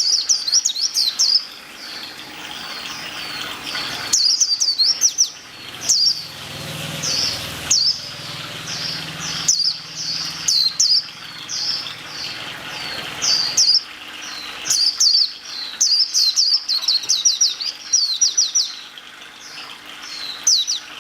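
A small songbird chirping over and over in short, high, quick runs of notes, with a steady hiss beneath.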